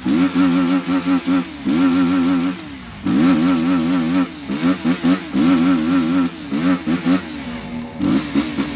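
BMW G310's single-cylinder engine revved high in repeated bursts of about a second, its pitch warbling rapidly up and down while it is held at high revs.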